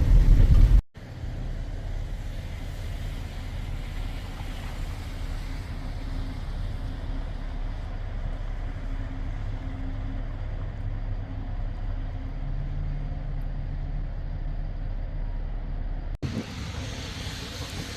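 Steady low rumble of a motor vehicle. It breaks off abruptly about a second in and again near the end, where a louder, noisier rumble takes over.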